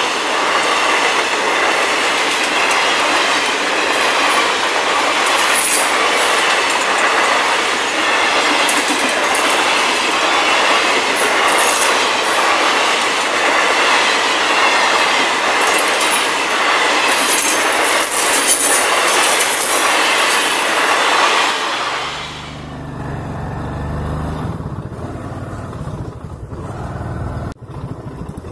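Coaches of the Purvanchal Express passing at speed close by, with a loud continuous noise of wheels on the rails and repeated brighter bursts of rail clatter and squeal. About 22 seconds in it cuts off abruptly to a quieter, steady low engine hum.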